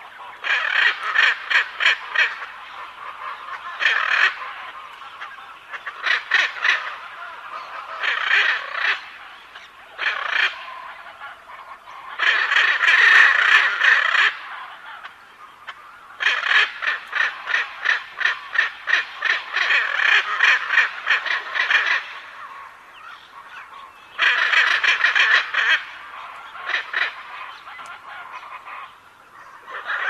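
Macaws squawking in repeated bouts of rapid calls, with short pauses between bouts; the longest run lasts about six seconds.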